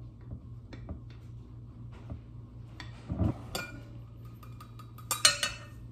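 Almond flour being scooped out of a plastic canister: light scrapes and taps, a dull knock about three seconds in, then a few ringing clinks against a glass bowl near the end, over a low steady hum.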